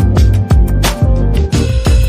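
Music with a steady drum beat and heavy bass.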